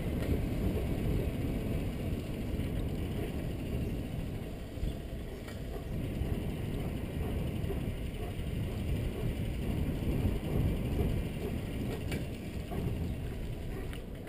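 Wind noise on a bicycle-mounted action camera's microphone while the bicycle rolls along on asphalt, with a few faint clicks.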